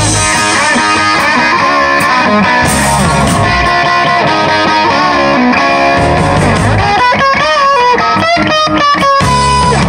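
Live rock band playing an instrumental break with no singing: an electric guitar plays sustained lead notes with some bends over bass and drums. The low end drops back midway, and a run of quick stop-time hits comes near the end before the full band comes back in.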